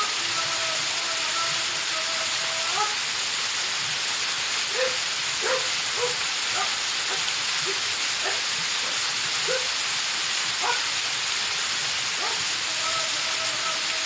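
Steady rush of a waterfall pouring onto rock, with a man's voice chanting through it during waterfall ascetic practice (takigyo). There is a long held chanted tone for the first few seconds and again near the end, and about nine short, clipped syllables in between.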